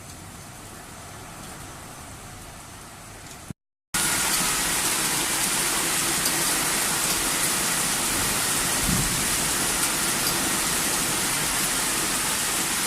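Heavy rain pouring down steadily. After a short break about three and a half seconds in, it comes back much louder and closer: a dense downpour with scattered drops hitting.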